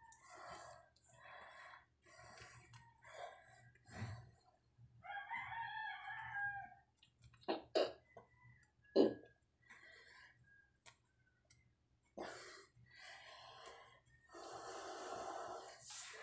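Close handling and play with a puppy: short rustling and breathy noises, a few sharp knocks, and one pitched call lasting under two seconds about five seconds in.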